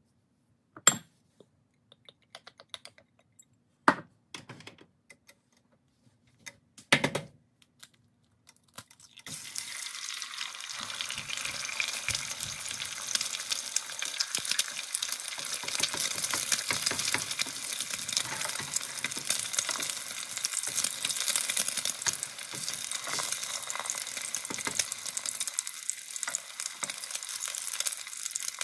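A few sharp, separate knocks. Then, about nine seconds in, an egg drops into hot oil in a nonstick frying pan and sets off a sudden, steady crackling sizzle that keeps going as it fries.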